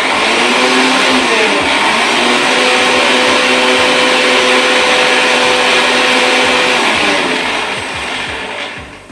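Electric mixer grinder starting abruptly and running at full speed, grinding dry roasted spices into masala powder. About seven seconds in it is switched off and the motor winds down.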